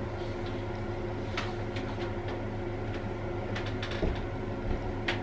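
A steady low machine hum, with a few light clicks and knocks over it.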